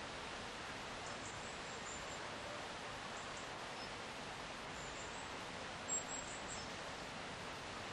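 Steady rush of a river flowing under oak woodland, with a few brief, high-pitched bird chirps over it; the sharpest chirp comes about six seconds in.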